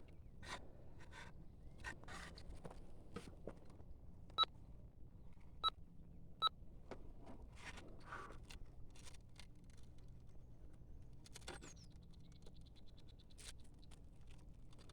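Faint rustling and scattered clicks. There are three short, sharp ticks with a slight ring between about four and six and a half seconds in, and a brief fast high rattle near the end.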